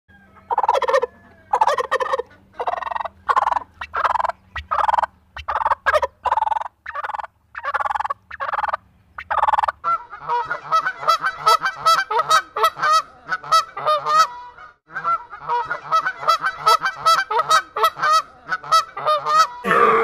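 Domestic turkeys gobbling in separate bursts, roughly one a second. About halfway through this gives way to Canada geese honking, a dense run of short, rapid, overlapping calls.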